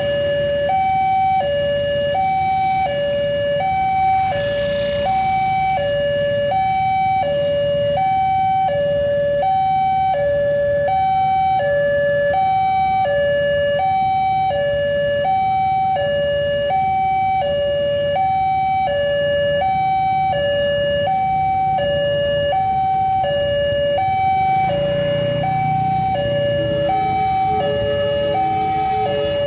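Railway level-crossing warning alarm sounding a steady electronic two-tone signal, alternating high and low notes about every three quarters of a second, warning that a train is approaching while the barriers are down. Idling motorcycle and car engines hum underneath, a little louder near the end.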